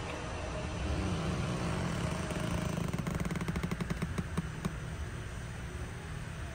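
Electric adjustment motors of a Mercedes power seat and steering column running on their own during the teach-in (normalization) routine. It is a steady motor hum that builds about a second in, with a rapid fine ticking for a second or two in the middle before it eases.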